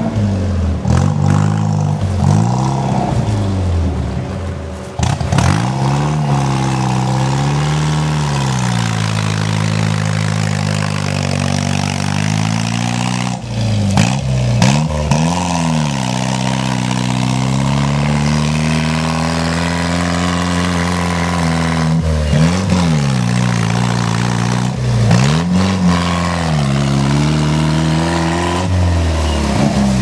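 Off-road 4x4's engine revving hard as it climbs a dirt slope, the revs rising and falling again and again every few seconds, with a few sharp knocks from the vehicle along the way.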